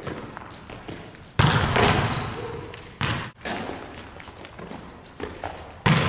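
Volleyball slaps and bounces on a hardwood gym floor: several sharp impacts, the loudest about a second and a half in, each echoing in the large hall. Short high sneaker squeaks on the hardwood come in between.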